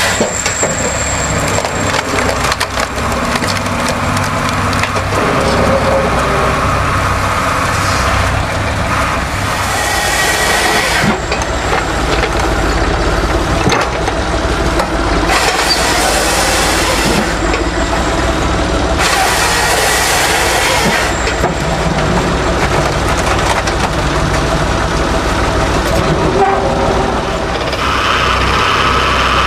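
A wood-processing machine running under load, with steady dense cracking and splintering of wood.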